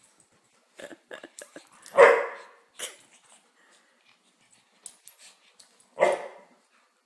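Dogs play-wrestling: two loud barks, about two seconds in and again near the end, with shorter scuffling sounds between.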